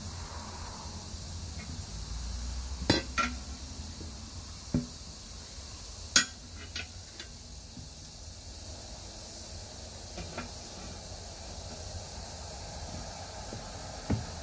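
Steel tire spoons clinking and knocking against a 19.5-inch truck wheel rim as the tire bead is levered over it: a scattering of sharp metal clinks, the loudest about three and six seconds in.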